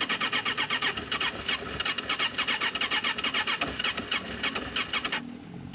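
Suzuki Katana motorcycle's electric starter cranking the engine in a quick, even rhythm for about five seconds without it catching, then stopping. The bike won't start, which the rider puts down to it flooding when it doesn't fire immediately.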